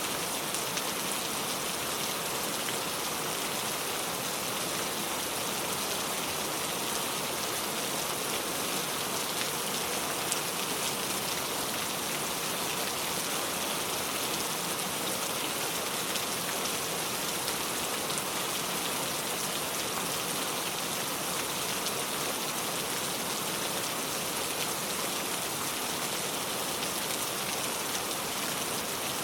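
Heavy rain falling steadily, an even hiss of drops on surfaces with no breaks or changes.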